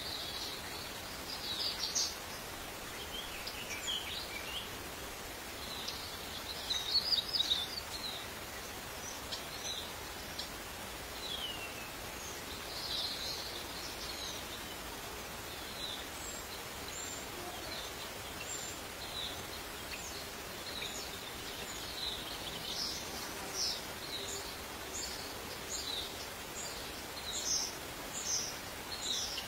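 Outdoor ambience: a steady hiss with many short, high chirps and brief gliding calls from birds, scattered irregularly, with a louder cluster about seven seconds in and several more near the end.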